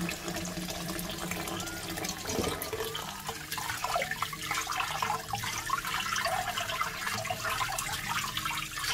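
Tap water running steadily into a perforated stainless-steel strainer of boiled ramyeon noodles, splashing as the noodles are rinsed to wash off the oil.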